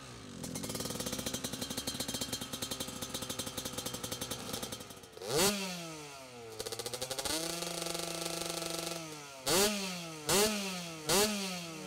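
2002 Kawasaki KX125 two-stroke engine running through its FMF silencer. It idles with a pulsing beat, is revved up and let fall back about five seconds in, settles to a steady idle, then takes three quick throttle blips near the end.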